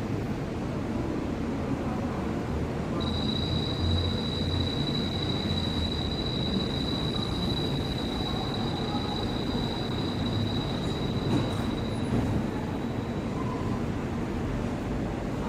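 Mitsubishi Crystal Mover light-rail train standing at the platform, with a steady low hum of its running equipment. A high, steady whine starts about three seconds in and fades out about twelve seconds in.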